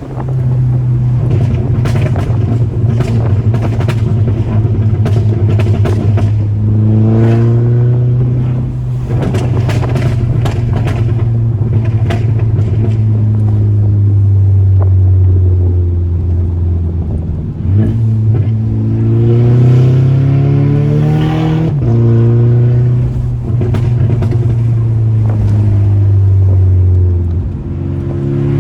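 Volkswagen Mk6 GTI's turbocharged four-cylinder engine running hard on the road, its pitch climbing as it accelerates several times. Rapid crackles and pops from the exhaust come through, from the Stratified tune's pops-and-crackles map, thickest in the first third and again about two-thirds of the way through.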